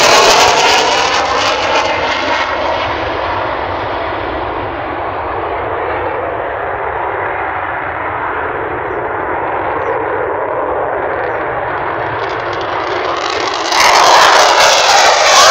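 F-16 fighter jets' turbofan engine noise. A loud jet climbing away fades over a few seconds to a steady distant rumble, then near the end jet noise jumps back suddenly loud as the next F-16 passes low.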